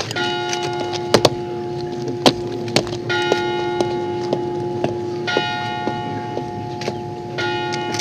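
Bell-like ringing tones: a low note held under higher chimes that are struck afresh about every two seconds, with a few sharp clicks on top.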